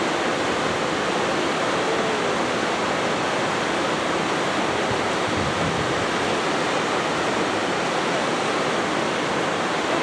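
Waterfall rushing steadily, a continuous even wash of falling water.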